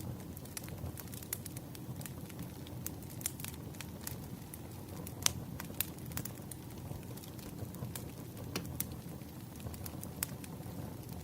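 Wood fire crackling: a steady low rush of burning logs with irregular sharp pops and snaps, the loudest pop about five seconds in.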